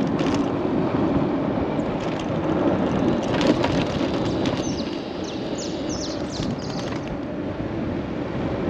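Wind rushing over the microphone and tyre-on-road noise while riding an electric custom scooter, whose motor is nearly silent. A few short clicks come around the middle.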